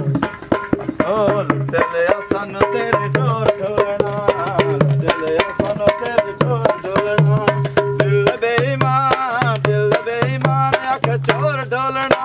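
Folk dance music: rapid hand-drum strokes on a dholak under a wavering melody line.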